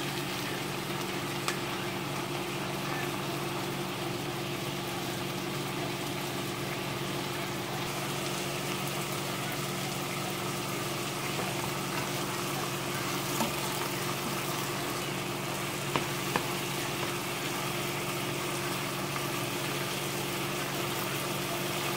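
Sardines in tomato sauce with jackfruit simmering in a pan with added water, a steady sizzling bubble with a few small pops along the way.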